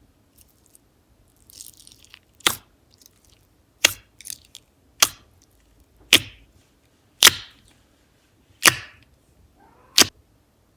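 Slime being pressed and squeezed by hand, letting out seven sharp pops of trapped air, about one a second.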